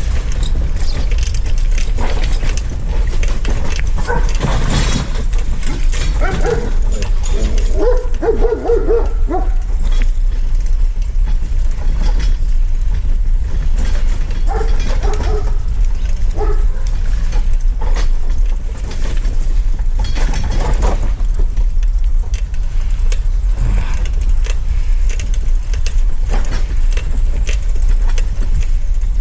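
Steady low rumble of wind and travel noise buffeting the microphone while riding. Over it, a dog barks and whines in short bunches a few seconds in and again about halfway.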